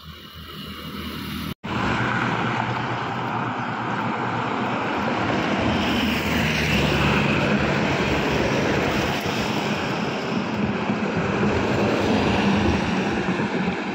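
Victory Liner coach buses on MAN chassis passing close by, their MAN D2066 six-cylinder diesel engines running under load with tyre and road noise. The noise swells, breaks off for an instant about one and a half seconds in, then stays loud and steady.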